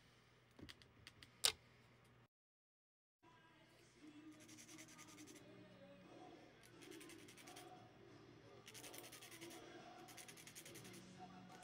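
A hand nail file rasping across the edge of a clear plastic false nail tip in bursts of quick strokes, each burst about a second long, several times over. Before that, a few light clicks and one sharp click about a second and a half in.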